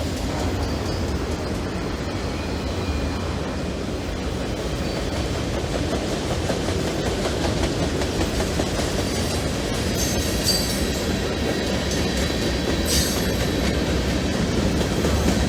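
Freight train cars rolling past on curved track with a steady rumble, and wheel flanges squealing briefly against the rail about ten and thirteen seconds in.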